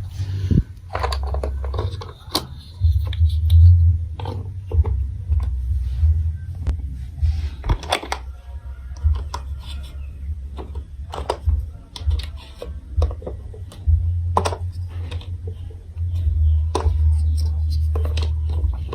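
Plastic building blocks and marble-run pieces being handled and fitted together: irregular sharp clicks and knocks over a low rumble.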